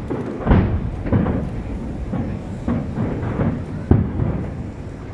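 Aerial firework shells bursting: a run of booms with a low rumble between them, the sharpest about half a second in and just before four seconds in.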